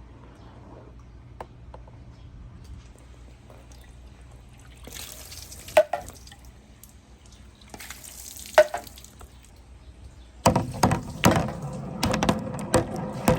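Water running down a rain-gutter marble slide, with two sharp knocks that ring briefly, a few seconds apart, as balls strike. From about ten seconds in, many balls rolling and clattering down the ramps, much louder.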